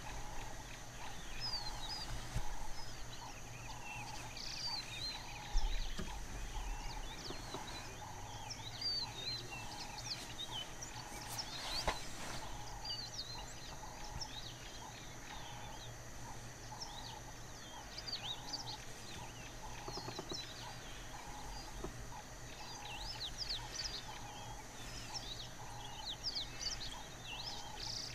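Open-savanna ambience: many birds chirping, with one call near 1 kHz repeating steadily a little faster than once a second, over a steady high whine and a low hum.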